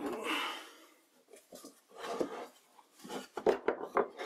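A drill press boring through wet oak stops at the start and winds down, fading out within the first second. Then come scattered light knocks and rubs of the oak workpiece being shifted on the drill press table, growing more frequent toward the end.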